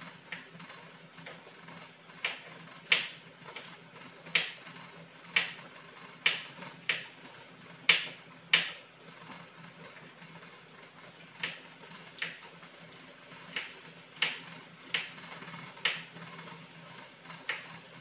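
Kitchen knife chopping on a plastic cutting board: single sharp knocks at an uneven pace, about one a second, with a pause of a couple of seconds around the middle. A steady low hum runs underneath.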